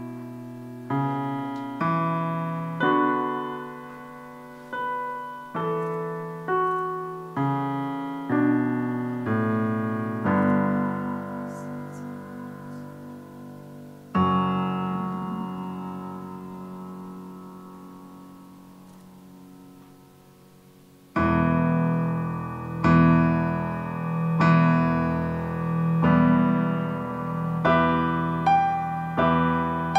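Solo piano music: slow chords struck about once a second and each left to die away, then a long chord rings and fades for several seconds before louder chords come back in about two-thirds of the way through.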